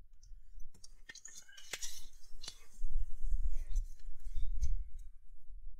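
Hands clearing loose items, including a hi-vis vest, off a car's rear floor carpet: a string of sharp clicks and light knocks with some rustling, and a low handling rumble from about three seconds in.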